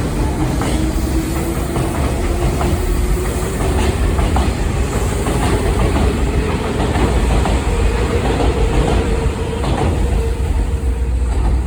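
Nankai 6000 series electric train running on the rails, with a motor whine that rises in pitch over several seconds and then holds steady. Faint clicks come from the wheels crossing rail joints.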